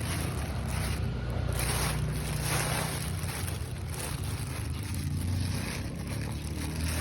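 Boat motor running steadily under the rush of water and wind.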